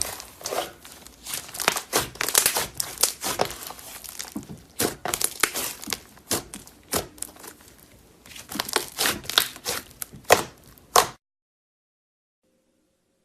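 Slime being squeezed and pressed by hand, giving irregular crackling and popping clicks. The sound cuts off suddenly about eleven seconds in.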